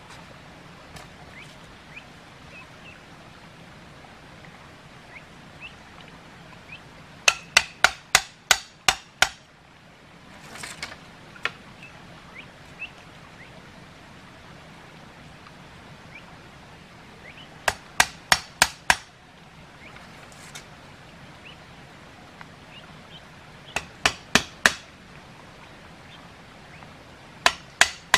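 Bamboo stakes being struck hard to drive them into the ground: quick bursts of four to six sharp knocks about three a second, four bursts in all with pauses between.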